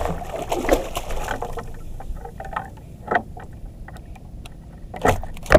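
Splashing and knocking as a gaffed dogtooth tuna is hauled out of the water into a small wooden outrigger boat, followed by scattered taps and two louder knocks against the hull, about three and five seconds in.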